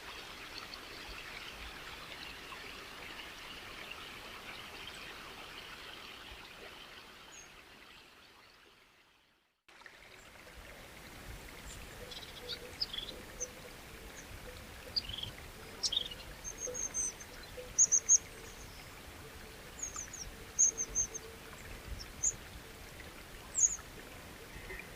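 Running water, a steady rushing hiss, fades out to silence about nine seconds in. A new outdoor recording then begins: a quiet, steady water-and-ambience background with birds chirping in short, high calls.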